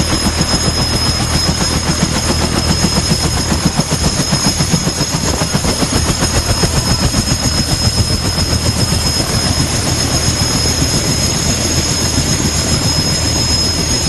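Helicopter running on the ground close by: the rapid, even chop of its two-bladed main rotor over a steady high turbine whine.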